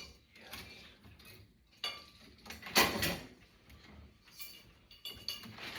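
Rummaging and handling of small hard objects: a few clinks and clatters, the loudest just under three seconds in, with lighter handling noise between them, as loose light-fixture parts and bulbs are sorted through.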